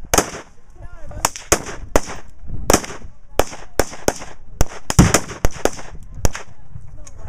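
Rifles firing rapidly from several shooters at once, about twenty sharp shots in seven seconds at irregular spacing, some overlapping. The shots are mixed with the booms of reactive explosive targets going off downrange.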